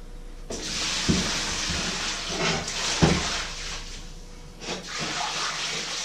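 Hissing and sizzling from a hot tray in the open electric oven, broken by two knocks of metal about one second and three seconds in. The hiss drops for a moment near the four-second mark and then comes back.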